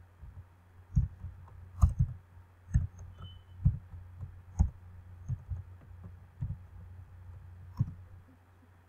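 Irregular computer keyboard key clicks, one every half second to a second with short pauses, over a low steady hum.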